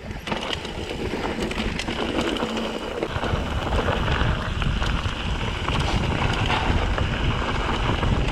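Wind buffeting the microphone as a mountain bike rolls over a rocky dirt trail, with tyre crunch and small rattles and clicks from the bike. The wind rumble grows stronger about three seconds in.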